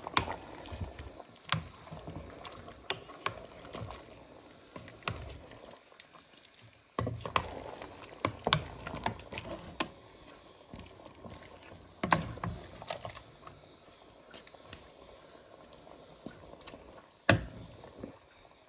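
Wooden spoon stirring chicken pieces in liquid in a stainless steel pot, with wet sloshing and irregular knocks and scrapes against the pot, a few of them louder.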